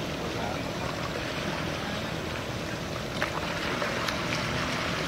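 Boat engines running steadily, with water rushing along the hulls.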